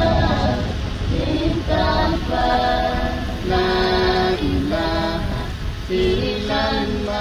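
Voices singing unaccompanied in a slow, chant-like melody of long held notes that step from pitch to pitch, over a steady low rumble.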